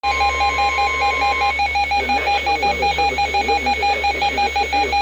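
Weather radio warning alert: a steady high alarm tone that cuts off about one and a half seconds in, over a rapid electronic beeping, several beeps a second, that keeps going. It signals a Severe Thunderstorm Warning broadcast.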